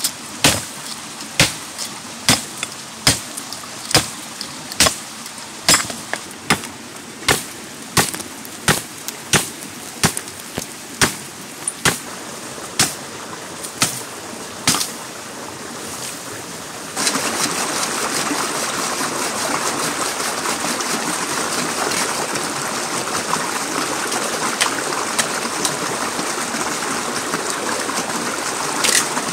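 A run of regular chopping strikes, about one every 0.7 seconds. About halfway through it cuts to a steady rushing hiss with a few faint ticks.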